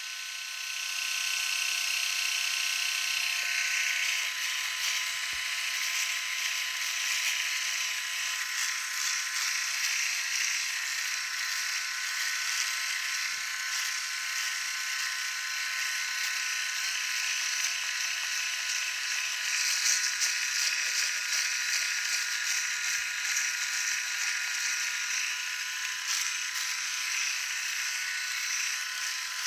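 ENCHEN Blackstone 3 three-head rotary electric shaver running steadily while it is moved over stubble on the neck: a constant motor whine under a hiss that rises and falls as the heads press and slide over the skin.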